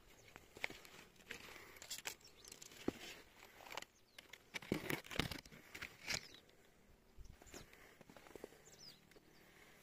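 Faint irregular rustling with scattered light clicks and knocks, a little louder about halfway through.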